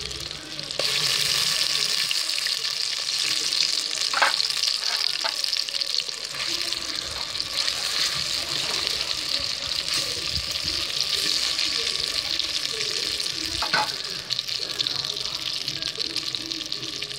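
Marinated chicken 65 pieces deep-frying in hot oil in a pot, giving a steady loud sizzle that gets louder about a second in. A couple of light clicks sound over it, about four seconds in and again near the end.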